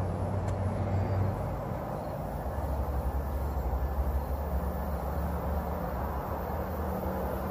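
Train passing, with a steady low engine drone over a constant rushing noise. The drone settles a little lower in pitch about two seconds in.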